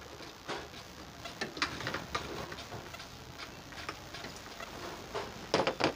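Irregular light clicks and taps of hand tools and metal parts during engine work, with a louder clatter of knocks near the end.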